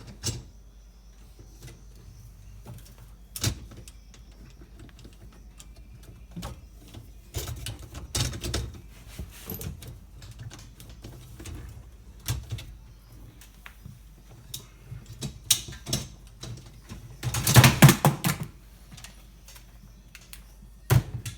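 Dishwasher parts and rack being handled and fitted back in: scattered clicks and knocks, with a longer, louder rattle near the end.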